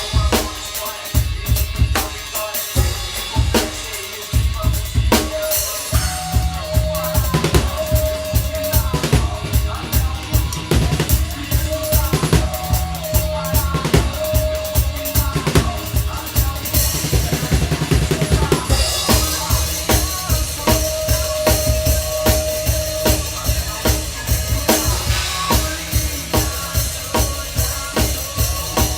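Drum kit played along to a backing music track. After a few seconds of scattered fills it settles into a fast, steady bass-drum groove with snare and cymbal hits.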